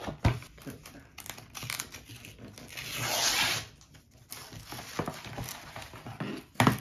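A paper courier shipping envelope being handled and torn open, with a longer tear about three seconds in, paper rustling and crinkling throughout, and a couple of sharp knocks against the table.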